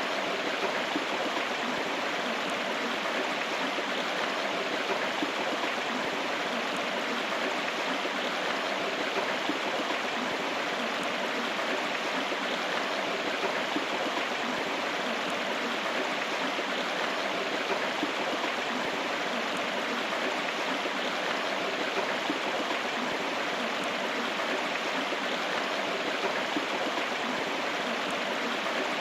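A river or stream running, steady rushing water with no change in level.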